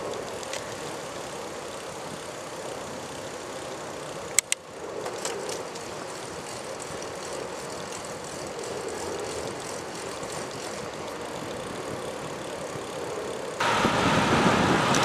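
Steady rush of wind and road noise while moving along a street, with one sharp click about four seconds in. Shortly before the end the noise jumps suddenly louder.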